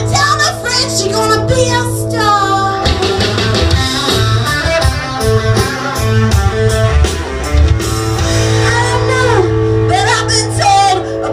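Rock song: a singer holding long, wavering notes over electric guitar, bass and drums, with a purely instrumental stretch in the middle where the bass line and beat come forward.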